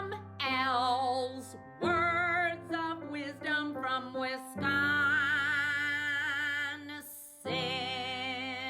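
Intro music: a voice singing phrases of long held notes with vibrato over a steady sustained accompaniment.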